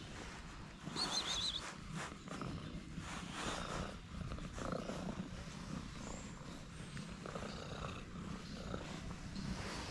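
Calico cat purring steadily while being stroked, with a brief high warbling chirp about a second in.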